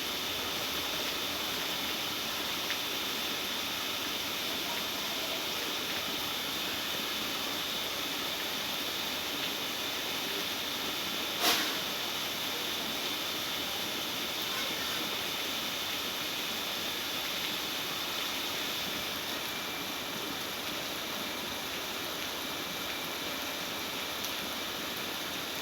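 Steady background hiss with a single sharp click of metal about eleven seconds in.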